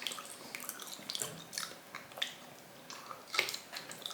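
A person chewing food with the mouth close to the microphone: irregular wet smacking clicks.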